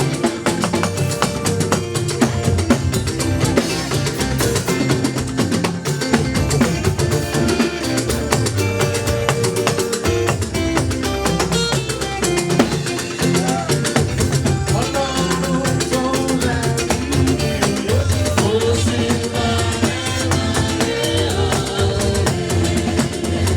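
Live church band music with drum kit, bass and guitar keeping a lively, steady beat, accompanying a hymn.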